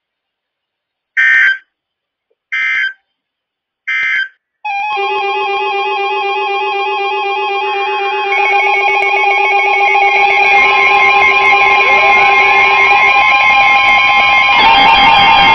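Three short bursts of digital data tones: the SAME end-of-message code that closes a NOAA Weather Radio warning. Then, from about five seconds in, music starts, with many layered sustained tones and a guitar-like sound, growing louder near the end.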